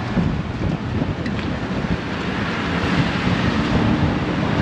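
Strong wind buffeting the microphone over the low running of a tuk-tuk's small engine, which is working hard at low speed up a hill into a headwind.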